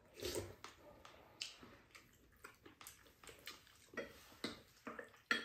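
Eating at the table: chewing and mouth sounds, with spoons clicking and scraping against ceramic bowls now and then in short, irregular taps.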